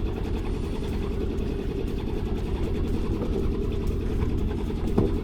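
Boat's engine running steadily at low revs, throttled back, a constant low rumble.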